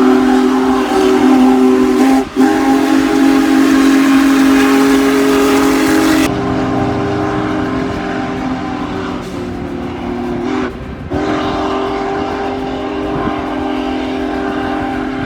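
A loud, steady chord of several held tones, like a horn or whistle, with two brief breaks.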